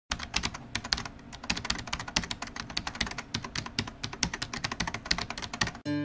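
Typing on a computer keyboard: rapid, irregular key clicks that stop abruptly just before the end.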